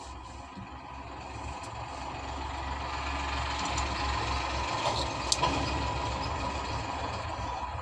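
A steady low rumble and hiss, like a motor running in the background, growing slowly louder. A few light clicks a little past the middle, as the plastic sharpener and lid are handled.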